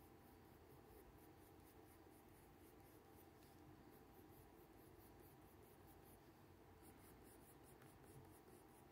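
Faint scratching of a black colored pencil on paper in quick, short repeated strokes, several a second, shading hair.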